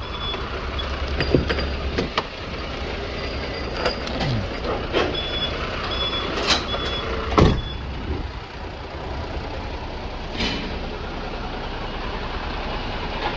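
Truck loading-yard noise: a diesel engine running steadily at idle, with short high-pitched beeps repeating in the first half. A few sharp knocks and clunks, the loudest just past halfway.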